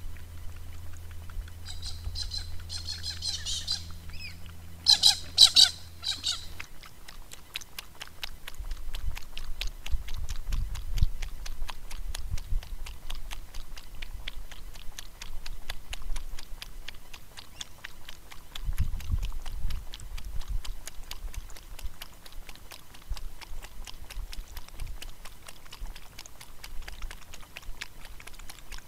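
A bird chattering and then squawking loudly a few times about five seconds in. A faint, rapid, even ticking carries on afterwards, with occasional low rumbles.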